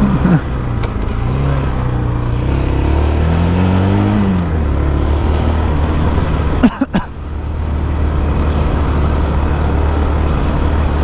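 Quad (ATV) engine running while being ridden, the pitch rising and then falling a few seconds in as the throttle is opened and eased off. The sound briefly cuts out about two-thirds of the way through.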